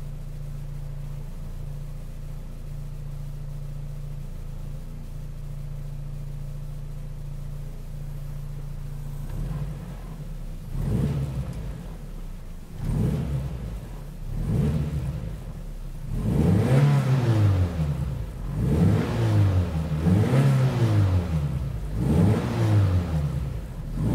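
Toyota MR2 Mk1's 4A-GE four-cylinder engine heard from inside the closed cabin with stiff polyurethane engine mounts fitted: a steady idle hum, then the engine revved up and let fall again and again, the revs growing bigger toward the end.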